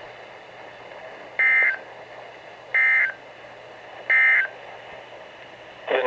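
NOAA Weather Radio end-of-message SAME data bursts played through a Midland weather radio's speaker: three short, identical buzzy digital bursts about a second and a half apart over faint radio hiss, the code that marks the end of the warning message.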